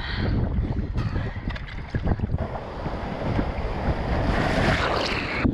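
Wind buffeting the microphone, with the rush of a breaking ocean wave's white water surging alongside a sit-on-top kayak; the wash builds up over the second half.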